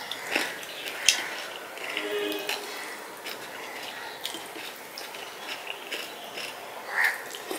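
Close-up eating sounds: wet, squelchy mouth smacks and chewing of rice with dal, with fingers squishing through soupy rice in a steel plate. Many short clicks, the sharpest about a second in.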